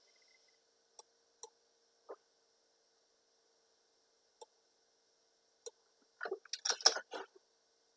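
Computer mouse clicks: single sharp clicks a second or more apart, then a quick run of several clicks and taps near the end, over a faint steady electrical hum.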